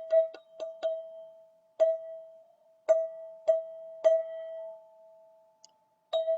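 Golden ZenTube, a single-note metal tube chime, struck over and over and ringing on one clear pitch. About five quick strikes in the first second, then slower, uneven strikes roughly a second apart, the last one near the end.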